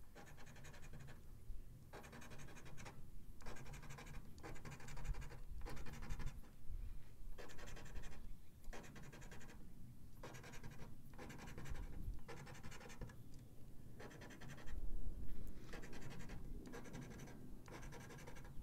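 A coin scraping the scratch-off coating from a paper lottery ticket, in a run of short strokes with brief pauses between them.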